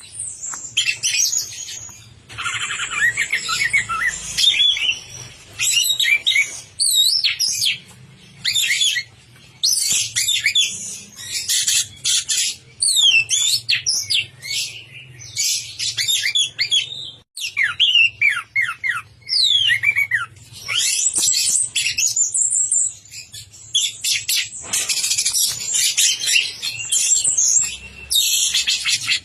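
Orange-headed thrush singing energetically, a long, varied run of fast whistled and trilled phrases with rapid pitch sweeps, broken only by short pauses.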